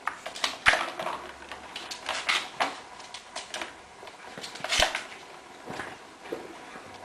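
Plastic ball clattering and rolling inside a plastic ball-track cat toy as kittens bat at it: irregular clicks and knocks, with sharper knocks about two-thirds of a second in and again near five seconds in.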